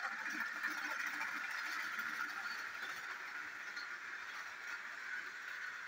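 Battery-powered toy train's small motor and gears whirring steadily as it runs around a plastic track.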